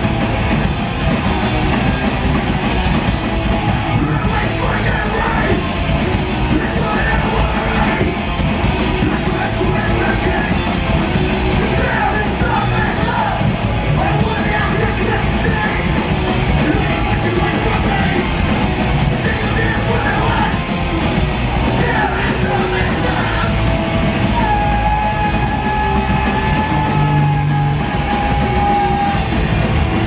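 Punk band playing live at full volume through a PA: distorted electric guitars, bass and drums with shouted vocals, and a long held high note near the end.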